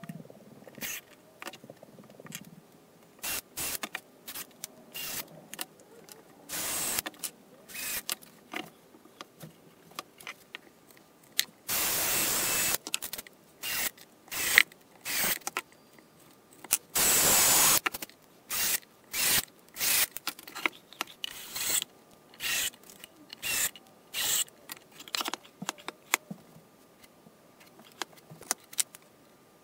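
Cordless drill-driver driving screws in many short bursts, each starting and stopping abruptly, with two longer runs near the middle.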